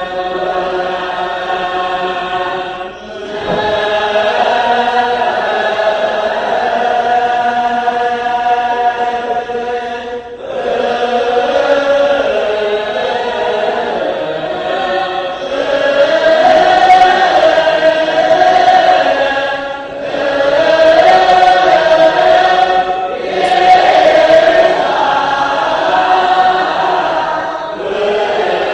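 Ethiopian Orthodox church choir chanting a hymn together in long, held phrases, with brief breaks between phrases.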